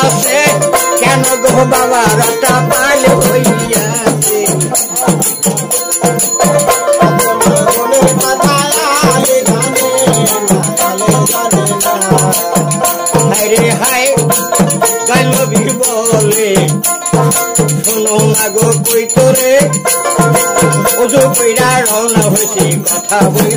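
Bangladeshi Baul folk music between verses of a jari gaan: a dotara plucked over a quick, steady percussion beat.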